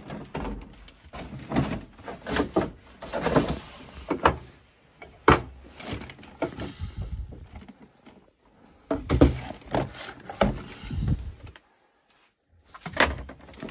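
Rummaging through a pile of junk: irregular knocks, clatter and rustling as wooden boards, an artificial Christmas tree and boxed items are shifted by hand, with a short lull near the end.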